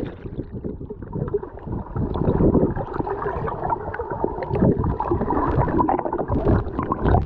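Swimming-pool water heard from below the surface: muffled gurgling and sloshing with many small clicks, the high end cut away as underwater sound is. A faint steady hum sits under it.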